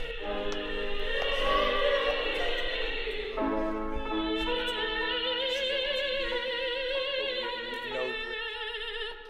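An opera singer's voice singing long held notes with wide vibrato, over lower sustained accompanying notes: vocal practice before a performance.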